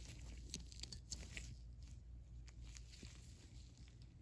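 Faint, scattered light clicks and taps of small metal ratchet parts being handled, over a low steady hum.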